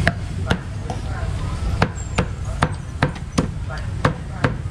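A meat cleaver chopping through charcoal-grilled poultry on a round chopping board. About ten sharp chops come at an uneven pace, some in quick pairs.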